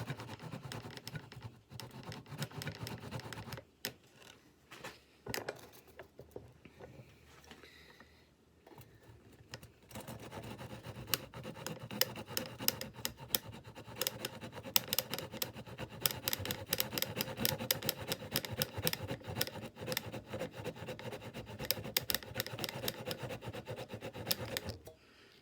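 Small tenon saw cutting through oak by hand in quick, short strokes, parting off a turned knob. After a few seconds of sawing comes a quieter pause with only odd scrapes, then steady sawing that stops near the end as the piece comes free.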